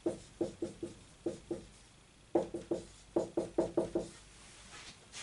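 Dry-erase marker tapping and knocking on a whiteboard as figures are written, in quick clusters of short taps with brief pauses between them.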